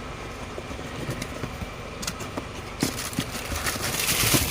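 A steady low mechanical hum in the background, with scattered clicks and, toward the end, rustling and clatter as a boxed replacement water pump is handled.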